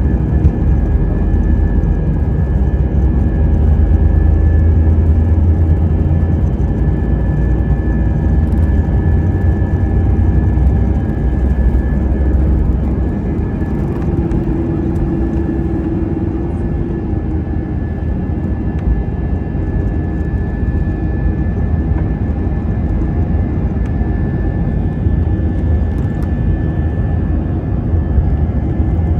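Passenger jet airliner's engines running: a steady low rumble with a thin, steady high whine over it.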